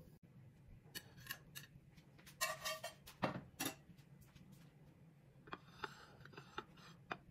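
Faint, scattered light clicks and knocks of a china plate being handled on a countertop, with one short ringing clink near the middle, over a low steady hum.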